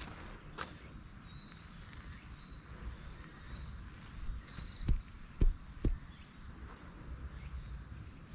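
Insects chirring steadily in a high, pulsing band, with three sharp knocks about half a second apart a little past the middle, the loudest sounds.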